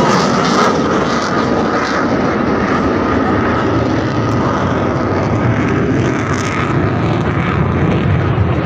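Engine noise of fighter jets flying overhead: a steady jet rumble that eases off a little over the first second or two, then holds.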